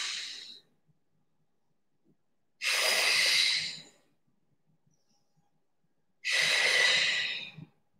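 A woman breathing hard with effort during a set of bent-over resistance-band rows: long, loud, hissing breaths, about three and a half seconds apart. The first trails off just after the start and two more follow.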